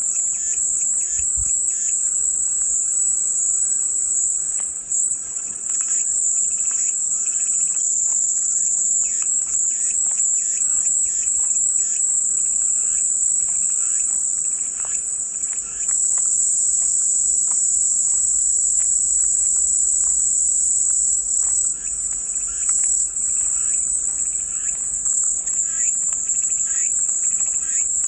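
Chorus of cicadas making a steady, high-pitched shrill drone, with faint short chirps scattered underneath.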